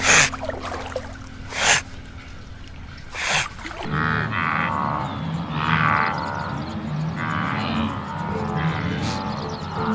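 Three short bursts of noise over a low hum, then a run of drawn-out, wavering animal calls from about four seconds in.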